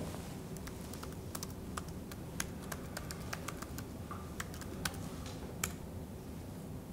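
Typing on a computer keyboard: faint, irregular key clicks as a login is entered.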